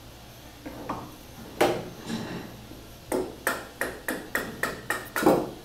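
A plastic-headed mallet taps the steel receiver of a .315 Lee–Enfield-pattern rifle to knock the barrelled action loose from its wooden stock. There are a couple of single ringing taps, then a quick run of about nine taps, roughly three a second, with the last one the loudest.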